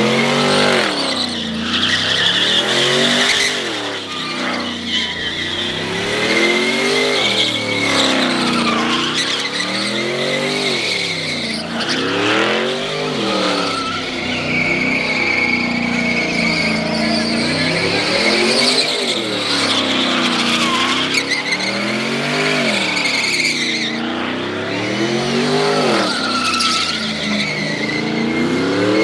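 A car engine revving up and dropping back over and over, about every three seconds, with tires squealing as the car slides.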